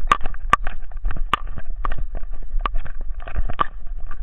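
Camera worn by a running dog knocking and rattling in its mount with the strides: sharp, irregular clicks, a few a second, over a low rumble of movement.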